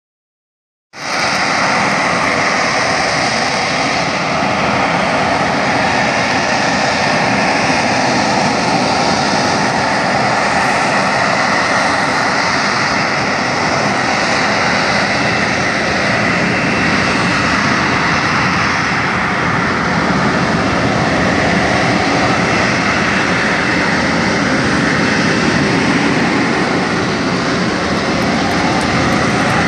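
Sea Harrier jet hovering on its Rolls-Royce Pegasus vectored-thrust turbofan, a loud, steady jet noise with a high whine over a low rumble. It sets in about a second in and holds without a break.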